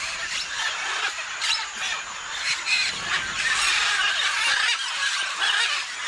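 A mixed flock of macaws and parrots calling, many overlapping calls with no pause.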